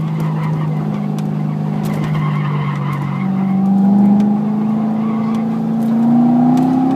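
2008 Chevrolet Corvette Z51's LS3 V8 heard from inside the cabin, its note sagging through a turn and rising as the car accelerates near the end. Tires squeal briefly through the corner about two seconds in.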